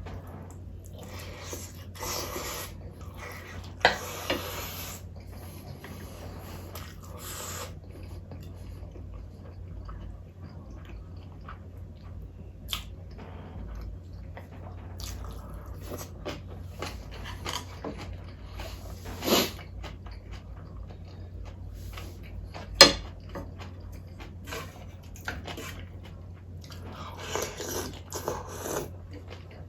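A person eating close to the microphone: wet chewing and biting of mouthfuls, with scattered sharp clicks of cutlery against dishes. The loudest clinks come about 4, 19 and 23 seconds in, over a steady low hum.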